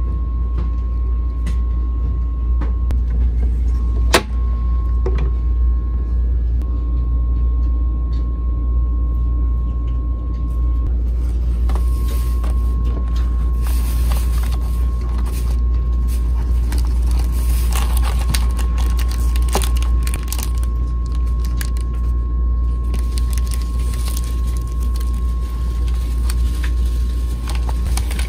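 Steady low rumble of a KTX high-speed train car running, with a faint constant high tone over it. One sharp click comes about 4 s in, and from about 12 s on paper snack packaging crinkles and rustles as it is handled and opened.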